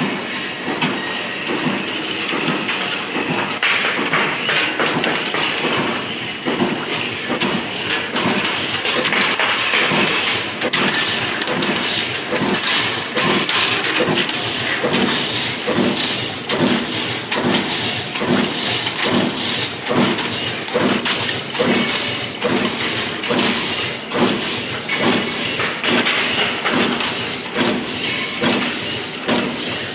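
Transformer wound-core cut-to-length line running, silicon steel strip feeding through its rollers and being sheared into lengths: a steady mechanical hiss with rapid, regular clacking that settles into an even rhythm about halfway through.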